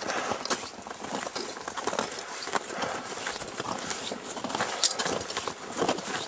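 Footsteps on a snowy, icy path: a few people walking, a run of irregular short knocks.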